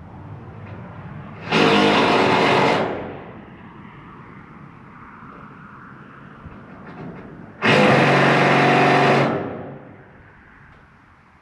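Handheld power tool, likely driving fasteners for the racking, run in two bursts of about a second and a half each, several seconds apart, at a steady pitch.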